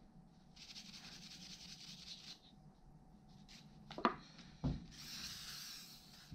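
Gloved hands rubbing and scrubbing a rusty metal tool part for about two seconds, then two short knocks as metal parts are set down on the cloth-covered workbench, followed near the end by a steady hiss lasting about a second.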